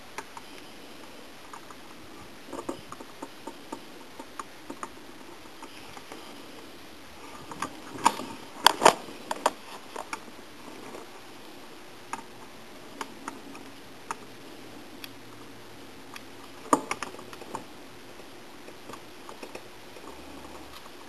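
Scattered light clicks and taps of a soldering gun and a circuit board being handled during solder touch-ups. A burst of sharper knocks comes about eight seconds in and another single knock several seconds later, over a faint steady hiss.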